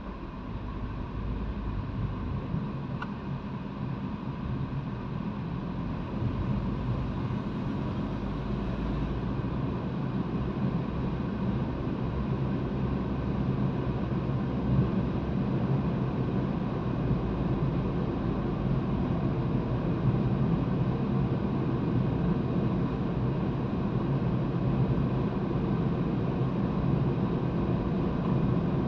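Car engine and road noise heard from inside the cabin, rising as the car pulls away and picks up speed over the first few seconds, then a steady low rumble at cruising speed.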